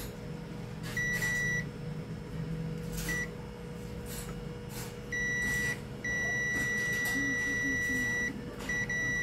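Digital multimeter's continuity beeper sounding a steady high beep each time its probes bridge the LED driver's output diode, about six beeps from brief chirps to one of about two seconds. The diode is shorted.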